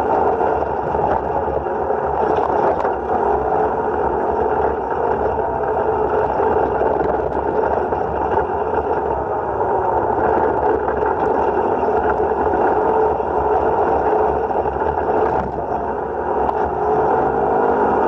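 Side-by-side UTV's engine and drivetrain running steadily under way on a dirt trail, the pitch rising and falling gently with the throttle.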